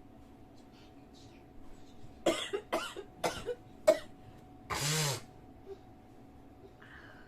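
A woman coughing: four short, sharp coughs about half a second apart, then a longer, voiced one about a second later.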